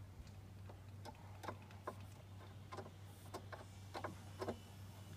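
Faint, irregular clicks and taps, about eight over a few seconds, from hands working at a small 25cc two-stroke boat engine and its carburetor while the engine is not running. A steady low hum lies underneath.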